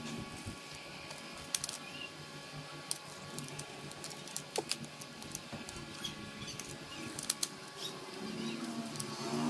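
Scattered light clicks and taps at an uneven pace over a faint steady hum, with one brief squeak about halfway through.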